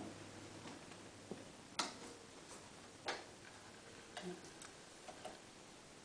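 Faint, scattered sharp clicks and taps, about half a dozen over several seconds, the loudest about two and three seconds in. A faint low hum stops about a second in.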